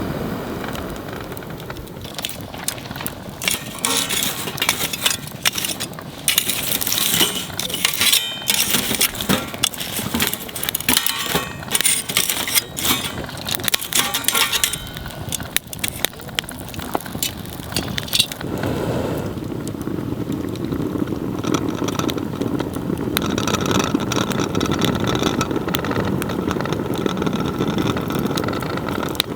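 Small wood fire in a Nature Stove Large fire stand, crackling and popping densely at first, then settling into a steadier, lower rushing burn about two-thirds of the way through.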